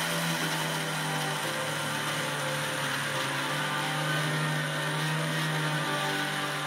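Electric mixer grinder running steadily, its blades grinding roasted nuts, seeds, coconut and sugar into a coarse powder in a clear plastic jar.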